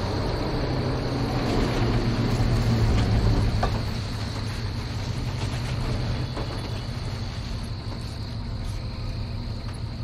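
A truck's engine drawing near, loudest about three seconds in, then easing off to idle close by, over a steady chirr of crickets.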